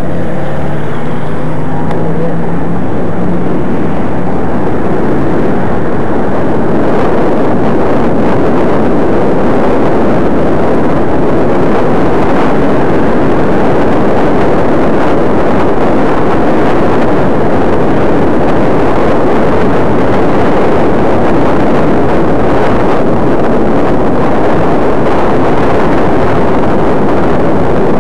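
Loud, steady wind rush buffeting the microphone of a camera on a moving vehicle, mixed with road and traffic noise, with a low steady hum for the first few seconds.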